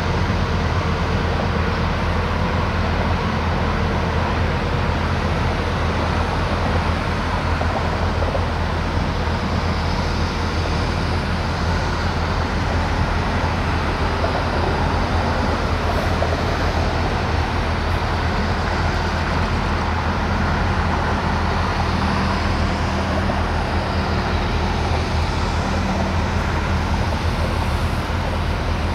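BNSF diesel-electric road-switcher locomotive idling, a steady low engine drone with no change in speed.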